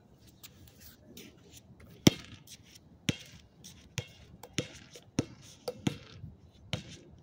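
Basketball dribbled on pavement: sharp bounces, the first and loudest about two seconds in, then roughly one a second and coming quicker near the end, with softer scraping noises between them.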